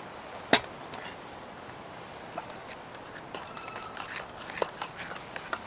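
Campfire crackling over a steady hiss, with one sharp, loud pop about half a second in and scattered smaller snaps after it.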